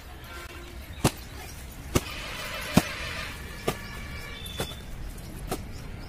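Rolled flat layflat irrigation hose thumping on dry dirt as it is unrolled, turned over by hand: six dull slaps, about one a second, the one near the middle loudest.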